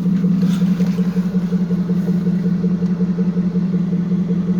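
Dodge Charger's 5.7 Hemi V8 idling steadily with a new serpentine belt and tensioner pulley fitted. The owner finds one of the pulleys sounds squeaky and suspects the belt is on too tight.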